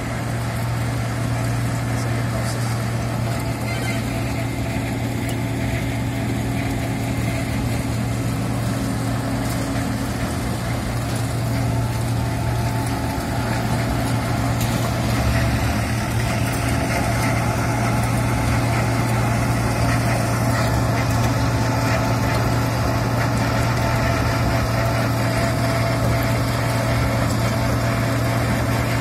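Wirtgen W 100 F cold milling machine at work milling asphalt: a steady engine drone over the grinding of the cutting drum, growing a little louder about halfway through.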